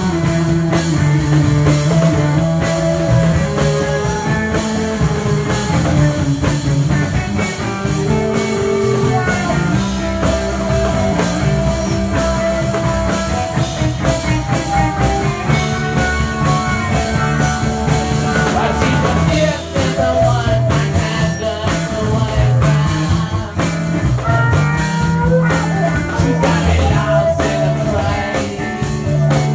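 Live band playing an up-tempo rock-and-roll song on electric guitar, fiddle, upright bass and drums, with singing.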